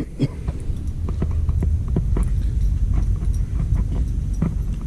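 Irregular light knocks and clicks, two or three a second, over a steady low rumble.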